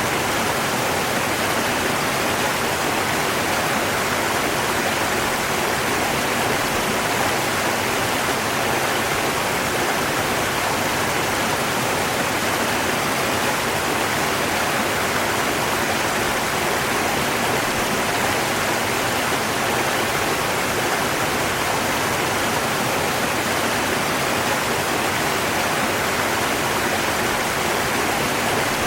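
River water rushing, a steady even wash of noise with no changes.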